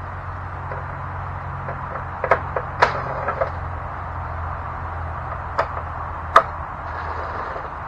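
Scattered sharp metallic clicks and clanks from hand tools on the mower's engine-cover bolts: a cluster of them a couple of seconds in, then two more further on. A steady low hum runs underneath.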